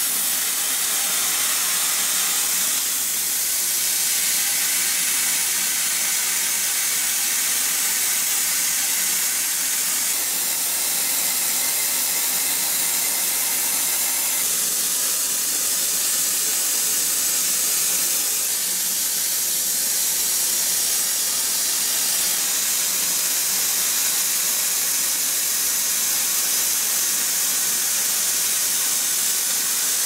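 Hypertherm plasma cutter on a CNC table, its arc cutting through 1-inch-thick steel plate: a loud, steady hiss.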